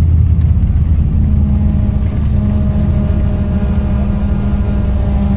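Jet airliner cabin noise on the ground just after landing: a steady low engine rumble, with a steady hum joining about a second in.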